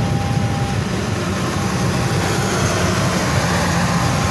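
Kertajaya passenger train's stainless-steel coaches rolling past close by: a steady low rumble of wheels on the rails, with a faint steady whine over it.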